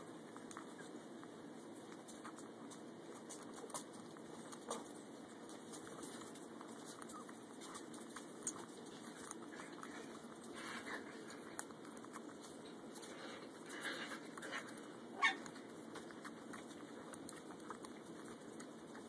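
Yorkshire terrier puppy suckling from a feeding bottle: faint, scattered little sucking clicks and smacks, with a few louder ones bunched together from about halfway through.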